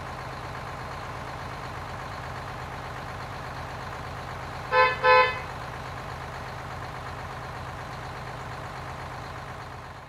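Garbage-truck engine sound effect running steadily, with a double horn beep, two short toots, about five seconds in.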